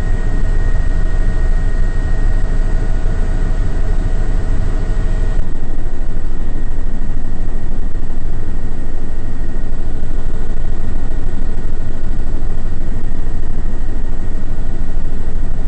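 Bell 206 helicopter's turboshaft engine and rotor heard inside the cockpit in flight: a loud, steady low rumble with a high turbine whine. The upper hiss eases slightly about five seconds in.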